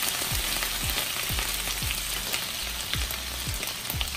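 Water sizzling and crackling in a hot frying pan of asparagus, just after a splash of water has been added to steam it, with many small pops over a steady hiss.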